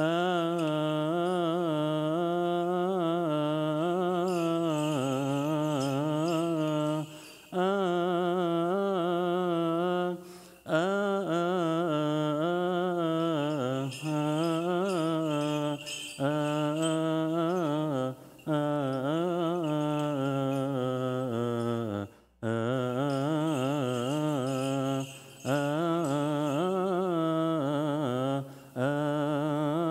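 A single male voice chanting a long, melismatic Coptic liturgical hymn. The pitch winds up and down within each phrase, with short pauses for breath every few seconds.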